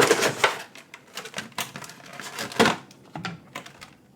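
A Pokémon TCG collection box being opened and its cardboard and plastic contents handled: a busy run of rustles, taps and clicks, loudest right at the start and again about two and a half seconds in, thinning out near the end.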